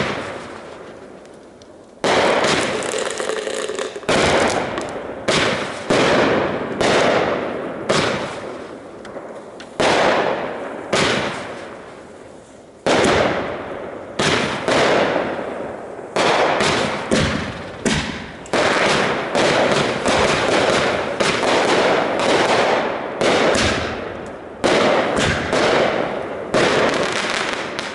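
Consumer firework cake firing a long run of aerial shots, about one sharp bang a second, each followed by a long fading echo as the shells burst overhead.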